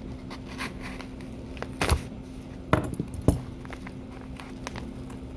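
A small knife cutting into a package and its wrapping, with rustling and a few sharp metallic clicks and knocks. The loudest come about two and three seconds in.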